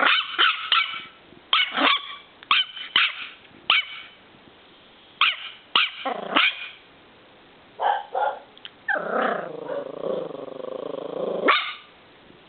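Miniature schnauzer puppy barking in short, high yapping barks, in bursts of two or three with pauses between. Near the end comes a drawn-out growl lasting a couple of seconds, capped by one last bark.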